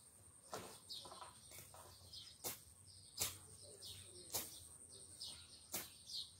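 A blade, likely a bolo, slashing weeds in sharp, brief strikes at irregular spacing, about six in all. Birds chirp faintly in between.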